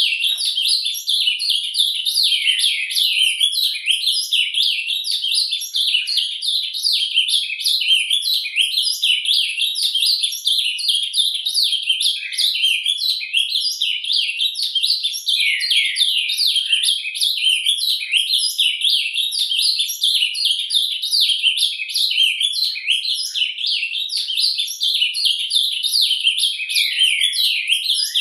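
Ultramarine grosbeak (azulão) singing its subsong ("surdina"): a continuous, unbroken stream of quick, rapid-fire twittering and warbling notes.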